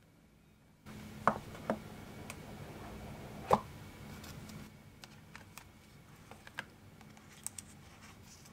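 Handling noise from unpacking a cardboard AirPods Pro box: sharp knocks and taps of the stiff card over a light rustle, with the loudest knock about three and a half seconds in, then lighter clicks and taps as the inner box is opened.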